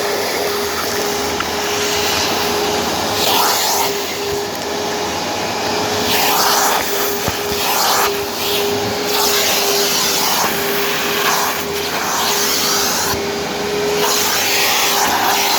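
Vacuum cleaner running, a steady motor whine under a rush of air that swells and dips every second or two.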